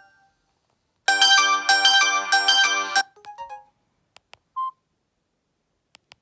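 Samsung GT-E1080W phone's speaker playing a ringtone: a quick melody of bright electronic notes that starts about a second in and cuts off abruptly after about two seconds. Then a few faint clicks and one short beep.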